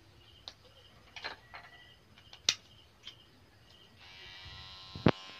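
A few sharp clicks and taps of handling, then about four seconds in a tattoo machine starts buzzing steadily, with one more sharp click near the end.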